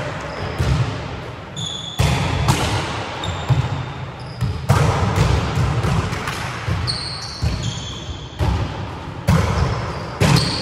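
Volleyballs being struck and bouncing on a wooden sports-hall floor: a string of sharp smacks, echoing around the hall, with short high squeaks of shoes on the floor.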